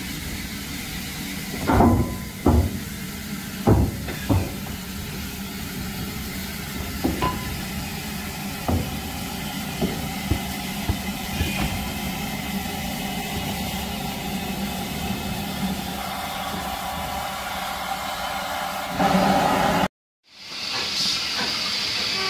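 Steam hissing steadily from Lancashire & Yorkshire Railway 0-6-0 locomotive No. 957 as it is turned on a turntable, with a handful of sharp metallic knocks in the first several seconds. Near the end the hiss swells louder for about a second.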